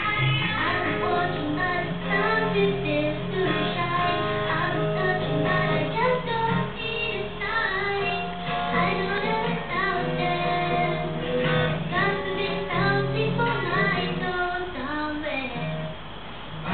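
A song from a television programme: a high singing voice over instrumental accompaniment.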